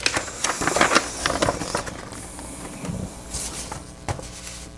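Large paper painting-and-marking sheet being folded and handled, rustling and crackling for about two seconds, then quieter rustles and a single sharp tap near the end.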